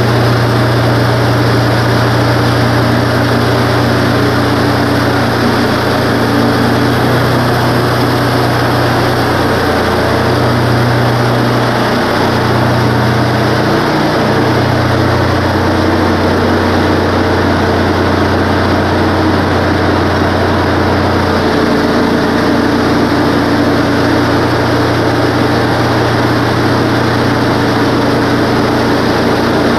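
Wood-Mizer LT15 bandsaw mill's gas engine running steadily as the saw head travels along a pine log. About halfway through, the engine note drops lower for several seconds, then comes back up.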